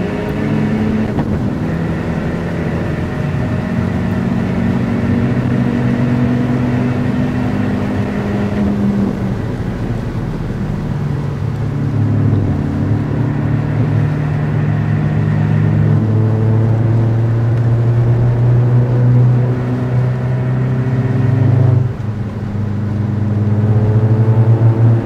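Alfa Romeo MiTo Cloverleaf's four-cylinder turbo engine under load on track, its note holding and climbing through the revs and dropping back at gear changes. There is a sharp shift about three-quarters of the way through, and it climbs again near the end.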